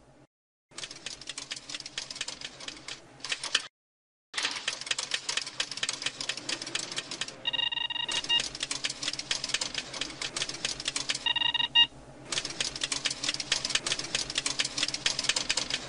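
Film projector running with a rapid, even mechanical clatter, cutting out briefly twice in the first few seconds. Two short high ringing tones sound over it partway through.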